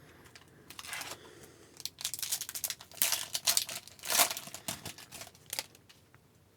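Foil trading-card pack being torn open, its wrapper crinkling and crackling in irregular bursts.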